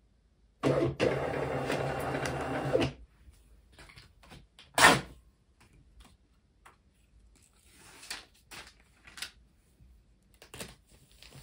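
A small machine whirs steadily for about two seconds. About five seconds in comes a single sharp click. Near the end there are faint rustles and taps as a plastic bubble mailer is pressed down on a postal scale.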